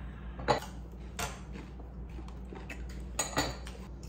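Metal cutlery clinking against a plate at the table: a few sharp clinks, the loudest about half a second in, another a moment later, and two close together near the end.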